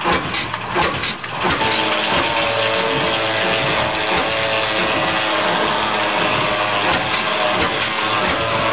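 Engine running an old sawmill, uneven and clattering for the first second and a half, then settling into a steady, even run.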